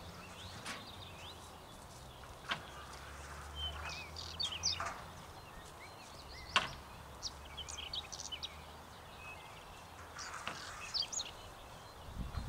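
Small birds chirping in open country, with a few sharp knocks of cage doors being shut on a transport truck, the loudest a little past halfway. A low hum fades out about halfway.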